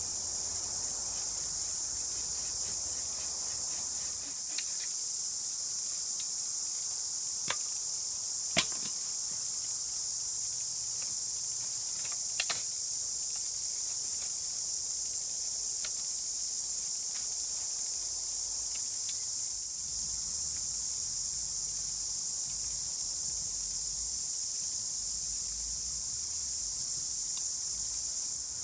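Steady, high-pitched chorus of cicadas, with a few sharp knocks as sticks of the hut's frame are handled, the loudest about eight and a half seconds in.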